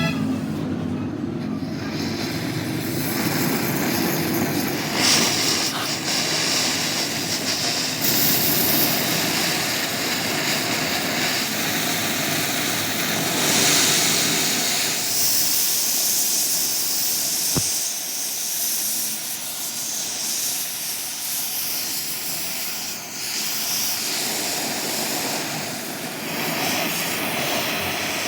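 Steady, loud hissing noise from metalworking on a broken steel spanner, changing in character every few seconds, with one sharp click about two-thirds of the way through.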